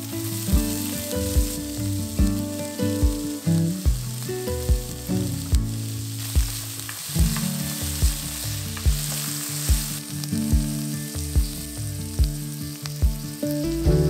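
Chopped shallots sizzling in hot oil in a stainless steel kadai while they are stirred with a wooden spatula. Soft background music with a steady beat plays under the sizzle.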